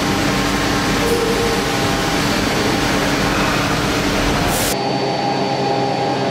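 5-axis gantry CNC milling machine with two spindles milling aluminium: steady machining noise with several held tones. About three-quarters of the way through the sound changes abruptly, the hiss dropping away and a steady high whine coming in.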